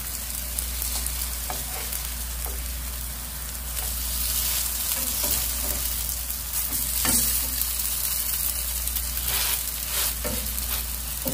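Potato pancakes frying in oil in a nonstick pan, a steady sizzle that grows somewhat louder about four seconds in. A spatula and chopsticks click and scrape against the pan now and then as the pancakes are flipped and pressed.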